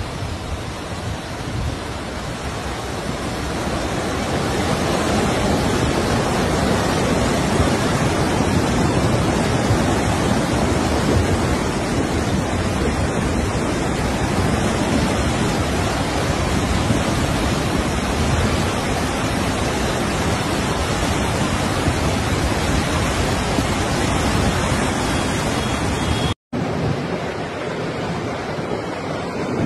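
Flash flood of muddy water rushing down a rocky wadi: a loud, steady rushing noise. It breaks off for an instant near the end, then comes back a little quieter and rises again.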